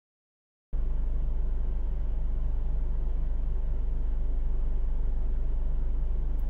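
Steady low rumble inside a parked car's cabin with the engine idling, starting abruptly about a second in after a moment of dead silence.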